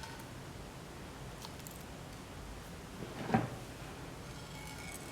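Quiet room tone with one short knock and clatter about three seconds in.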